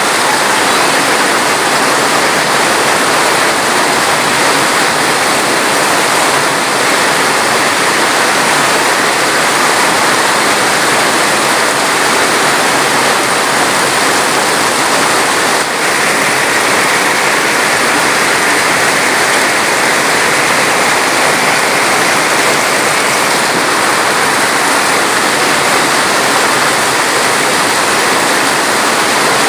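Loud, steady rush of water, even and unbroken throughout.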